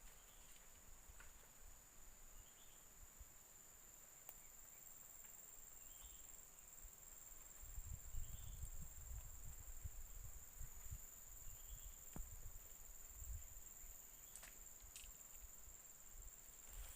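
Steady high-pitched drone of forest insects, with small faint chirps repeating every second or two. Low rumbling thumps come and go about halfway through.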